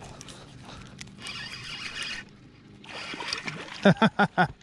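A hooked crappie splashing and thrashing at the water's surface beside the boat as it is reeled in, then four quick, loud thumps near the end.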